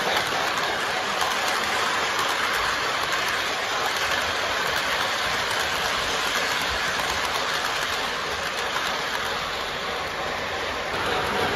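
Lionel O-gauge model train rolling past on its three-rail track: a steady whirring rattle of wheels and running gear.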